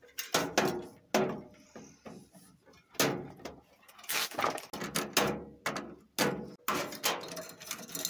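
Wires being pulled off their terminals inside an opened microwave oven: a string of irregular clicks, knocks and rattles of wire and connectors against the sheet-metal chassis.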